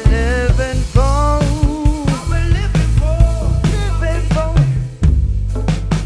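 Live band playing: a drum kit keeping the beat with kick and snare under a deep bass line, and a bending melody line on top for the first couple of seconds.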